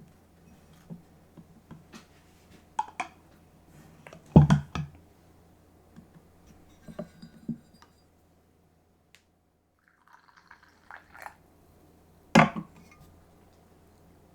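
Glass and crockery being handled: a run of scattered knocks and clinks. The loudest knock comes about four seconds in, and another near the end.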